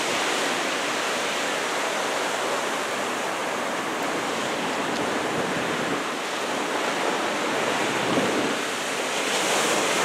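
Ocean surf breaking and washing up the beach in a steady rush, the swell raised by an approaching typhoon, growing a little louder near the end.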